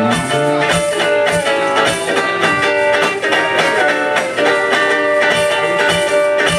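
Live band playing a loud, guitar-led number: amplified guitar chords over a steady, regular beat.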